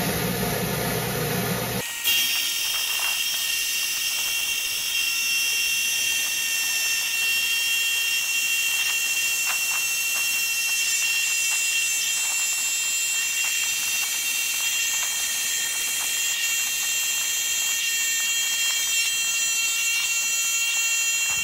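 Diamond blade of a Hi-Tech Diamond slab saw cutting through an agate: a steady high-pitched whine of several tones over a hiss. A lower-pitched running sound gives way to it about two seconds in.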